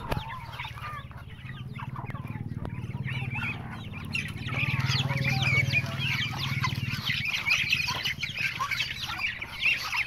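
Chickens clucking with many quick, high chick peeps, growing denser from about three seconds in, over a low steady hum.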